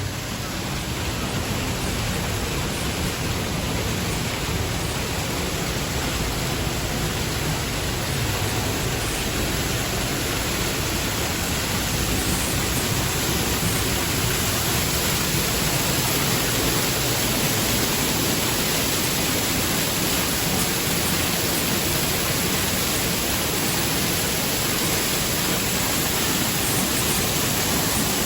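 A waterfall rushing: a steady, even roar of falling water that builds slightly over the first few seconds and then holds.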